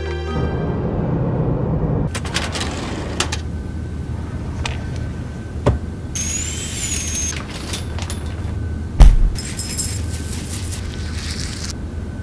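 Factory and warehouse machinery: a steady low hum with scattered clicks and clanks, a warbling high whine about six seconds in, and a heavy thump about nine seconds in.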